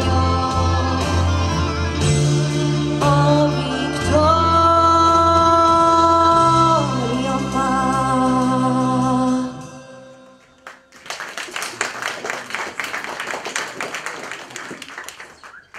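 A girl's solo singing voice with instrumental accompaniment, ending the song on a long held note that falls away, followed by audience applause from about a second after the music stops.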